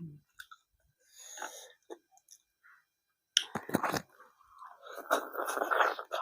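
A person chewing food close to the microphone, with wet mouth noises. There are a few sharp smacks a little over three seconds in and a longer stretch of chewing near the end.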